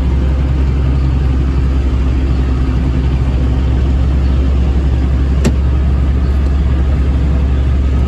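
Steady, loud drone of a vertical TMR feed mixer and the engine driving it while the mixer unloads feed out of its side discharge chute. One short sharp click about five and a half seconds in.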